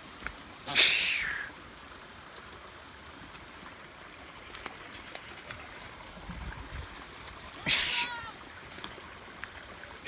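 Goats bleating twice, high-pitched calls that fall in pitch, one about a second in and another about eight seconds in.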